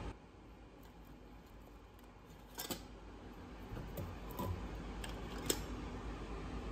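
Stainless-steel tea canister being opened by hand: a few sharp metallic clicks and light scrapes as the cap and inner lid come off, the sharpest about five and a half seconds in. A low steady hum runs underneath.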